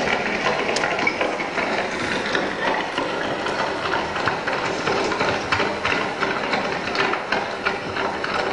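A continuous dense clatter of many small clicks and knocks, mechanical-sounding, with no clear pitch.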